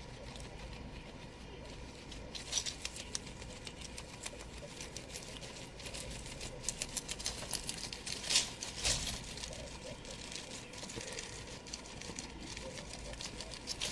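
Guinea pig chewing dandelion leaves and rustling the hay, a run of quick crisp crunching and crackling clicks, loudest twice around the middle.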